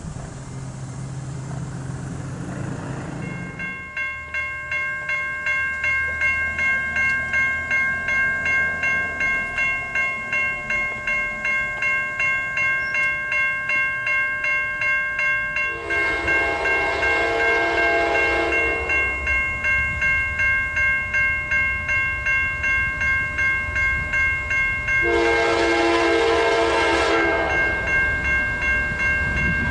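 Railroad grade-crossing bell ringing steadily at about two strokes a second, joined by two long blasts of the horn of an approaching Norfolk Southern GE AC44C6M freight locomotive, one about halfway through and one near the end, over the low rumble of the oncoming train.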